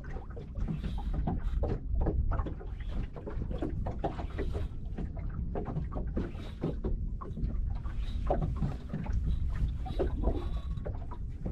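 Water lapping and slapping irregularly against the hull of a small boat at rest, over a steady low rumble.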